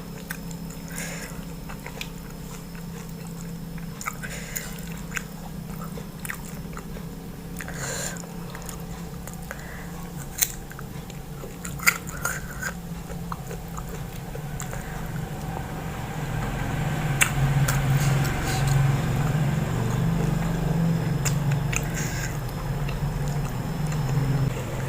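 Close-miked chewing and biting of oily mutton fat curry and rice, with sharp wet mouth clicks scattered through it. From about two-thirds of the way in, a low hum grows louder underneath.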